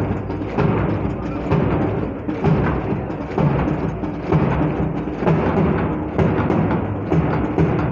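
Military march music for marching troops, with a steady drum beat and heavier accents about once a second.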